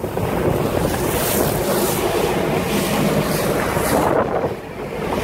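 Wind buffeting the microphone over the running engine of a small motorboat and the slap of choppy water, easing briefly near the end.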